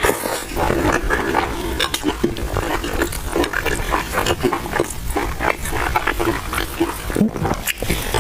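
A person eating crispy pan-fried buns, heard up close: a dense run of small crunches, wet chewing and lip smacks.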